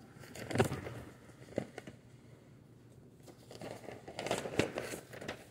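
Paper documents rustling and crinkling as they are handled and passed over, in a few short spurts with soft clicks, busier in the second half.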